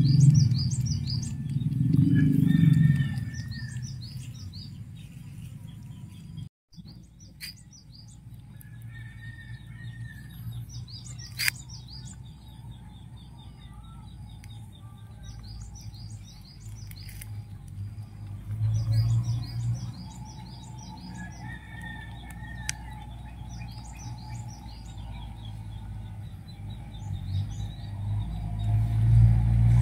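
Small birds chirping in short, quick trills that repeat over and over, with a low rumble swelling near the start, about two-thirds of the way through, and again at the end.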